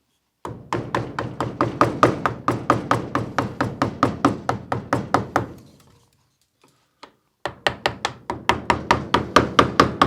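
A mallet tapping a carving gouge through hard wood: quick, light, even strikes, about five or six a second, in two runs with a pause of nearly two seconds between them.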